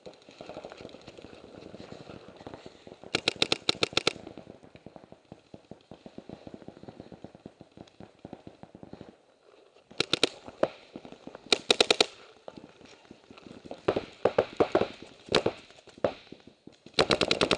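Paintball markers firing rapid strings of shots: a steady crackle of fast shots across the field, broken by loud bursts of about a second each around three seconds in, twice between ten and twelve seconds, around fourteen to fifteen seconds and near the end.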